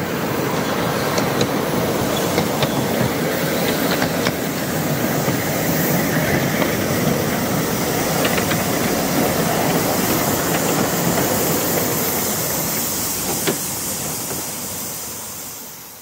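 A 5-inch gauge Simplex 0-6-0 miniature steam locomotive running along the track, hissing steam over the rumble of its wheels, with a few sharp clicks; the sound fades out near the end.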